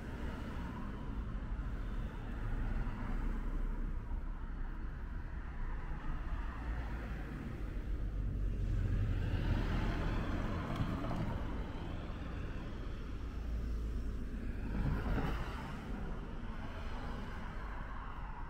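Outdoor traffic sound: a steady low rumble that swells about halfway through as a car passes, with a brief louder moment a few seconds later.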